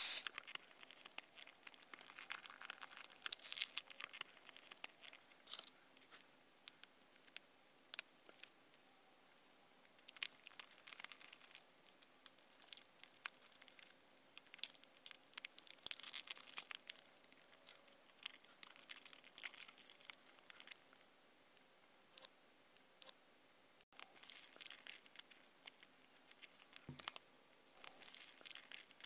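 Thin plastic window-tint film being crinkled and smoothed by hand: irregular bursts of crackling and rustling with short quiet gaps between them.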